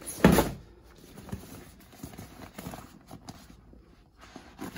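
The thin vinyl sheet of a deflated inflatable kids' pool being lifted and handled. It gives a loud sudden rustle about a quarter second in, then quieter scattered rustles and light knocks.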